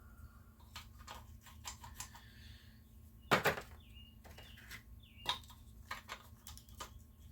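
Metal sockets clicking and clinking as they are picked out of a socket set, a string of light clicks with a louder clack about three and a half seconds in and another just past five seconds.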